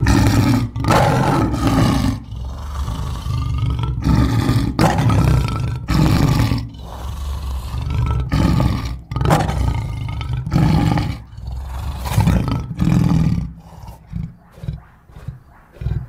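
Postosuchus sound-effect roars: a long series of deep, loud calls every second or two, turning into shorter, choppier calls near the end.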